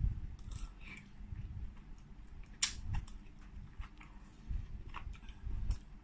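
Close-miked chewing of a mouthful of mushroom, with wet mouth clicks and smacks. A single sharp click stands out about two and a half seconds in.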